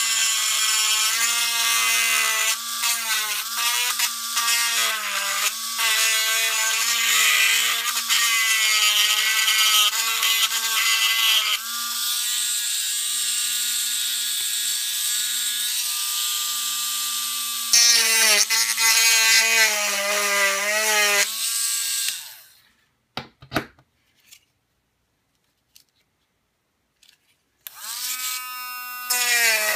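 Handheld rotary tool with a steel grinding bit whining as it grinds a hard plastic car body shell, its pitch wavering as the bit works the plastic. It is switched off about 22 seconds in, and after a few seconds with a couple of faint clicks it starts again, the whine rising as it spins up.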